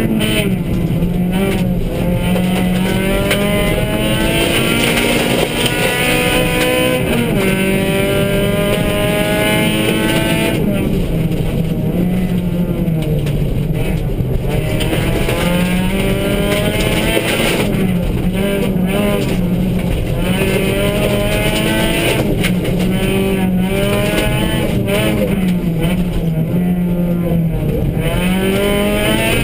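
Suzuki Swift rally car's engine heard from inside the cabin, revving up through the gears: the pitch climbs, drops back at each gear change, and climbs again several times.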